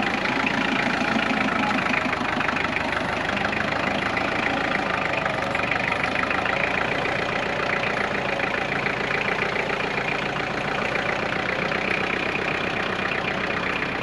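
Husqvarna 572XP two-stroke chainsaw running steadily at high revs while bucking a dry fir log, its chain getting a bit dull.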